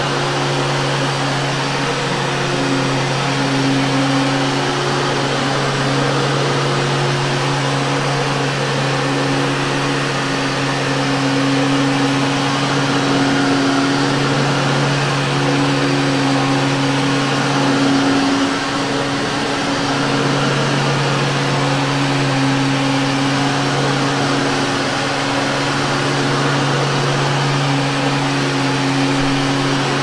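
Vintage Hoover Caddy upright vacuum cleaner running as it is pushed back and forth over carpet: a steady motor hum over a broad rush of airflow, with a brief dip in the hum about two-thirds of the way through.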